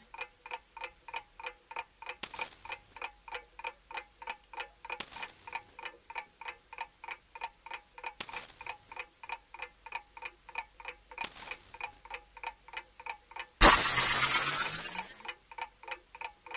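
A clock-ticking sound effect: a rapid, steady tick. Short bright chimes ring over it about every three seconds, four times, and a loud whooshing hit comes about three seconds before the end and fades over about two seconds.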